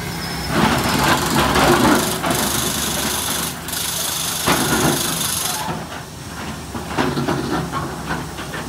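SANY SY365H Pro excavator's diesel engine running steadily while it loads andesite rock, with bursts of rock clattering and a high hiss from about a second and a half in until nearly six seconds.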